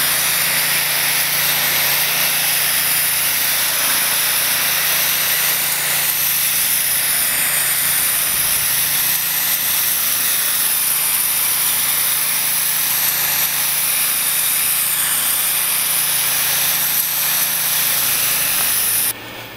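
Low-pressure roof-washing rig spraying water onto flat roll roofing: a steady hiss of spray over a steady mechanical hum from the pump. Cuts off suddenly near the end.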